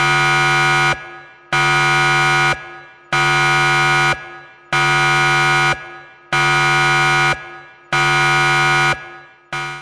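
Digital countdown timer's alarm going off at zero: a loud, buzzy electronic beep about a second long, repeating with short gaps about every one and a half seconds. It sounds six times, with a seventh beginning near the end.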